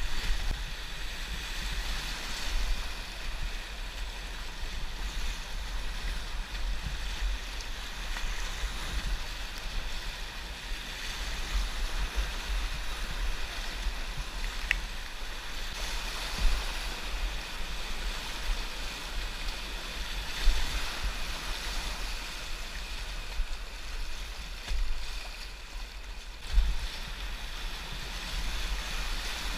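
Whitewater rapids rushing steadily around a kayak, with wind rumbling on the microphone in gusts and a few brief louder surges.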